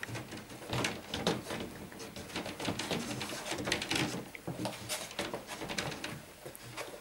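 Five-week-old Airedale Terrier puppies scrambling about a wooden whelping box: many irregular scratches and clicks of small claws, blanket rustling, and a few small puppy squeaks.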